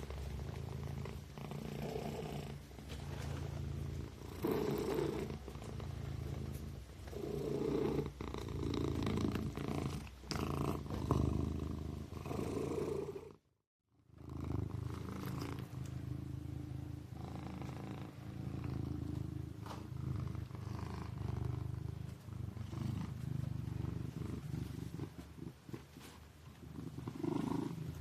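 A sleeping kitten purring in a steady low rumble that swells and eases every two to three seconds. The sound cuts out completely for about half a second near the middle, then the purring resumes.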